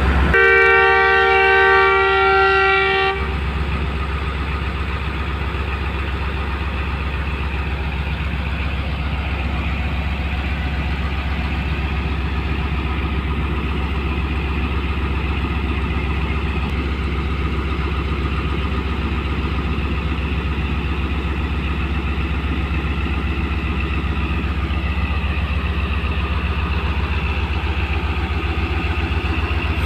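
Pakistan Railways diesel locomotive sounding its horn for about three seconds, a chord of several steady tones, then its diesel engine running steadily with a deep low hum.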